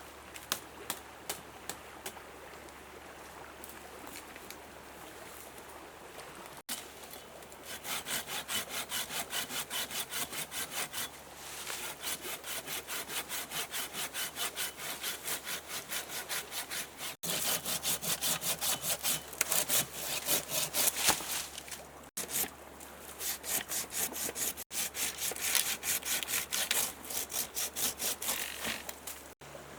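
Hand saw cutting through wood in quick, steady back-and-forth strokes, about three a second, in several runs that break off abruptly. The first few seconds hold only a few faint clicks.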